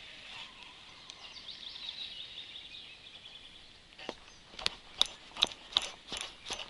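Faint outdoor ambience with high birdsong, then, over the last three seconds or so, a run of about seven sharp clicks, roughly two to three a second.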